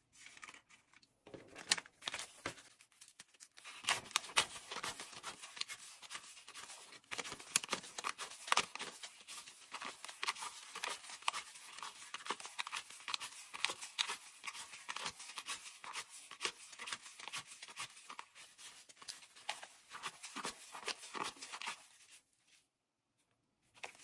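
Paper US banknotes being counted by hand: quick, crisp rustling and flicking of bills as they are fanned and peeled off a stack, with a brief pause near the end.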